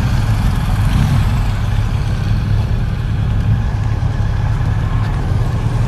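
Motor vehicles' engines running at close range: a steady low rumble.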